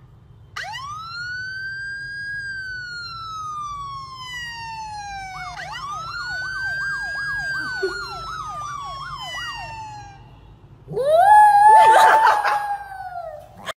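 A police siren sound effect wails, first in one long rise and slow fall, then with a fast yelping warble over a second slow wail. Near the end a small white dog howls along, louder than the siren, in a wavering, uneven howl.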